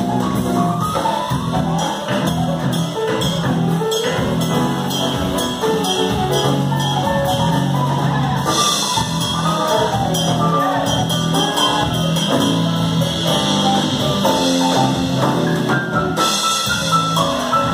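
Live band music with drum kit, electric bass and keyboard, with brighter, hissier passages about eight seconds in and again near the end.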